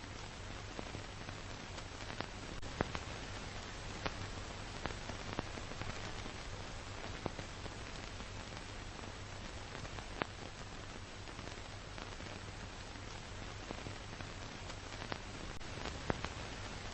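Steady hiss with a low hum and scattered sharp clicks and pops at irregular times: the surface noise of an old film transfer that carries no recorded sound.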